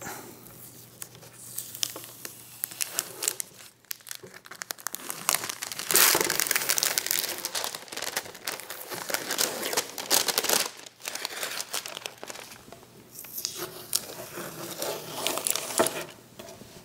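Masking tape and masking paper being peeled off a freshly painted frame: crinkling and tearing of the tape and paper, loudest about six seconds in.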